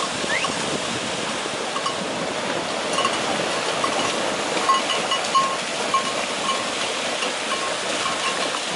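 Herd of Camargue horses galloping through shallow marsh water: continuous loud splashing and churning of hooves in the water. Short high clinking notes ring out repeatedly through the middle.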